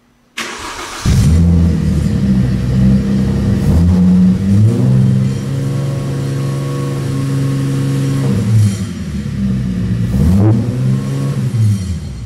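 Mercedes-Benz W204 C300 V6 engine starting: the starter cranks briefly, the engine catches about a second in, then runs at a fast idle with several throttle blips that rise in pitch.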